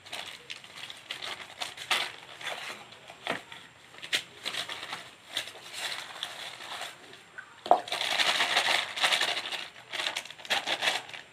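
A plastic bag crinkling and a trowel scraping and tapping in wet cement mortar in a plastic basin as the mortar is packed into the bag. A louder, denser stretch of scraping and crinkling comes about eight seconds in.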